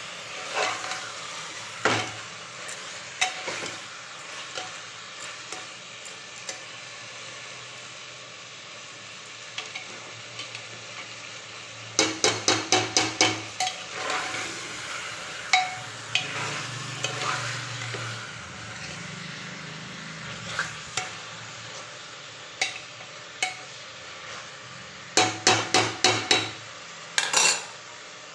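Steel ladle stirring and scraping chicken curry in an aluminium pressure cooker over a steady sizzle, with scattered clinks against the pot. About halfway through, and again near the end, comes a quick run of clinks, several strikes a second.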